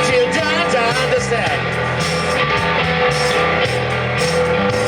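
Rock music with electric guitar, bass and a singing voice.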